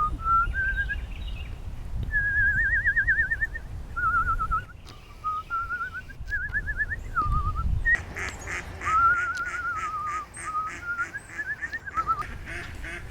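A person whistling a warbling tune in short phrases that step up and down in pitch, with wind rumbling on the microphone. From about eight seconds in, a rapid repeated bird call chatters behind the whistling.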